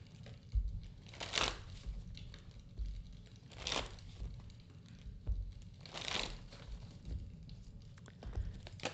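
A deck of oracle cards being shuffled by hand: three short papery swishes, a couple of seconds apart.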